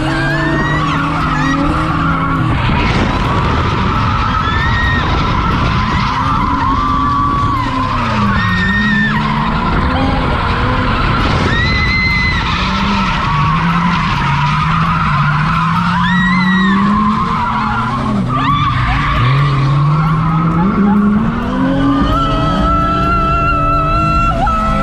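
Drift car's engine revving up and down through repeated slides, with the tyres squealing steadily, heard from inside the cabin.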